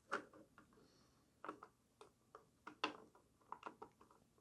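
Faint, irregular clicks and taps of the two plastic halves of a Splat-R-Ball gel blaster magazine shell being pressed and fitted together by hand.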